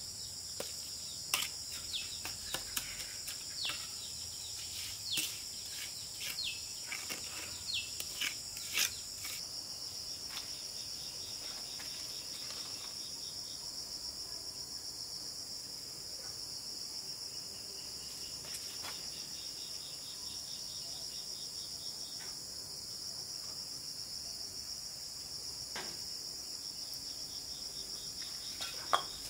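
A steady, high-pitched insect chorus, with sharp taps and scrapes from a brick trowel on bricks and cement mortar, scattered through the first ten seconds or so and once more near the end.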